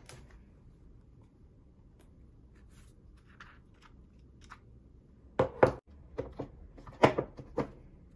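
Cardboard packaging knocking and tapping on a desk as an Apple Watch is lifted out of its paper tray and the packaging is handled. There are faint light ticks at first, then two clusters of sharp knocks from about five and a half seconds in, about a second and a half apart.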